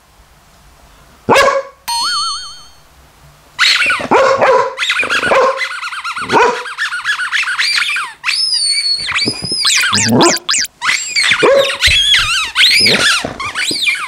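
A labradoodle barking repeatedly and angrily in reaction to a talking toy's voice, with the toy's electronic warbling tone sounding about two seconds in.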